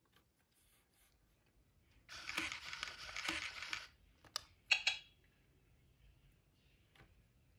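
Hasbro I-Dog Amp'd robot dog toy making electronic sound effects through its small speaker: a scratchy, noisy sound lasting nearly two seconds about two seconds in, then a click and a short high chirp around five seconds in.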